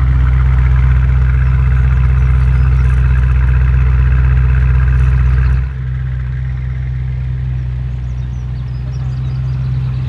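ABT Audi RS6-R Avant C8's twin-turbo 4.0-litre V8, its petrol particulate filter deleted, idling steadily with the exhaust close by. A little over halfway through the sound drops abruptly to a quieter steady idle as the car rolls slowly away.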